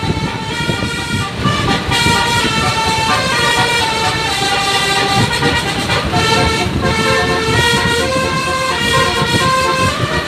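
Indonesian bus "telolet" horn playing a tune: a run of held notes that jump from pitch to pitch about twice a second, over a low rumble of engine and traffic.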